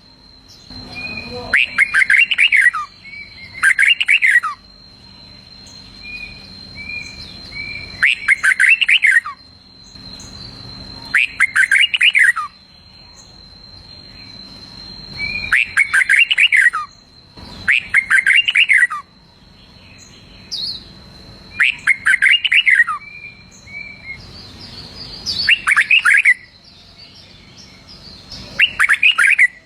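Red-whiskered bulbul singing: about a dozen short, bright song phrases at uneven gaps of one to four seconds, with soft single chirps between some of them.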